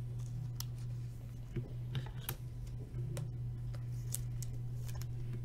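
Trading cards being handled and flipped through by hand: light clicks, ticks and slides of card stock, scattered irregularly over a steady low hum.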